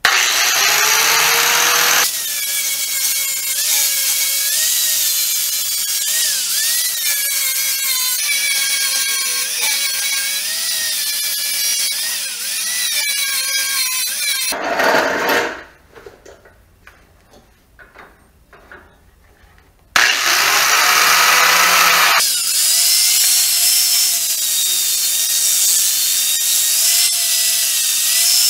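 Angle grinder with a worn-out flap disc spinning up and grinding metal, its whine wavering and dipping under load. About halfway through it winds down and stops. A few seconds later it starts again, spins up and grinds on.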